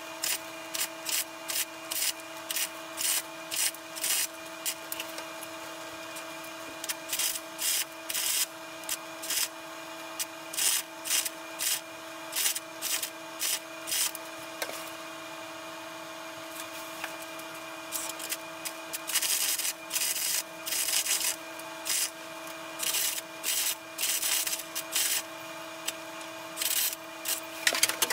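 Wire-feed arc welder laying short stitch and tack welds on a car's steel floor pan: the arc crackles in dozens of short bursts, about one or two a second, with a few longer runs in the second half. A steady hum runs underneath.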